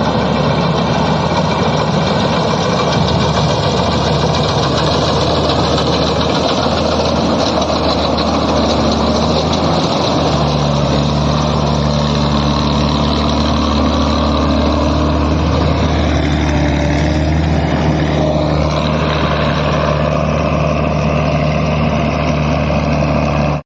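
NS 929 combine harvester's engine running steadily and loud, its note shifting slightly about ten seconds in.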